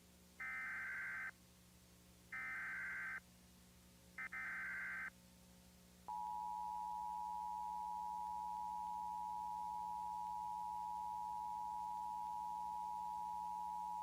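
Emergency Alert System tones. First come three short SAME header data bursts, each just under a second long and about two seconds apart. Then, about six seconds in, the steady two-tone EAS attention signal begins, announcing the alert's voice message.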